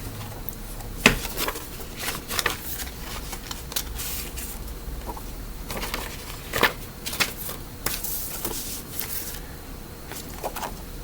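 Small handling noises: a scattered run of soft clicks and rustles, several seconds apart, over a steady low hum.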